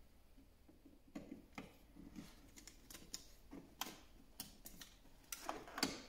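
Faint, scattered clicks and light taps of hands working a flush-mounted light switch insert and its wires in the wall box, with a quick run of louder clicks near the end.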